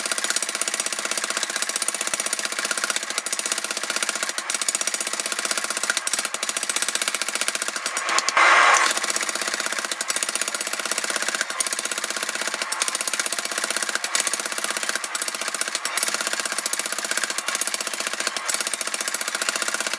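Power hammer pounding hot drill-rod steel in a rapid, continuous run of blows, drawing one end of a digging bar out to a point. A brief louder rush of noise comes about eight seconds in.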